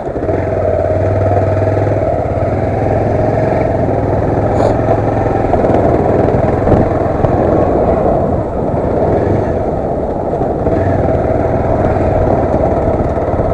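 Motorcycle engine running steadily as the bike is ridden, with road noise, picked up by a helmet-mounted action camera's built-in microphone.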